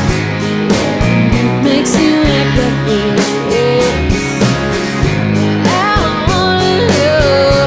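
Live country-rock band: a woman singing lead over strummed acoustic guitars, with a steady drum beat.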